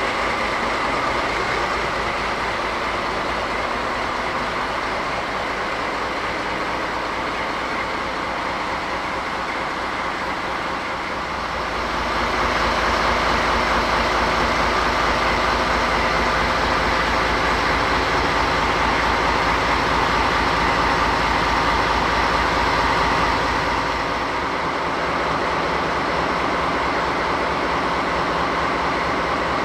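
DD16 diesel locomotive's V12 diesel engine running at a standstill with a steady low throb. It grows louder about twelve seconds in, then eases back near the end.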